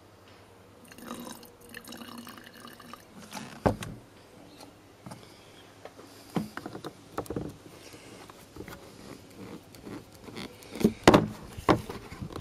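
White spirit trickling from a plastic bottle into a plastic bottle of car polish, followed by several knocks and clicks of the plastic bottles being handled, the loudest near the end as the red cap is pressed on.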